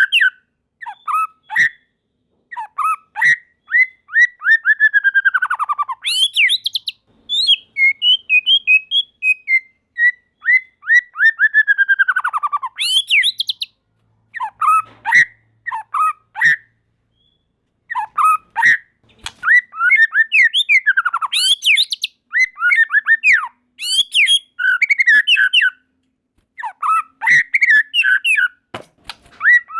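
White-rumped shama (murai batu) singing loud phrases of rapid whistled notes with short pauses between them. Twice a long run of quick notes slides downward in pitch.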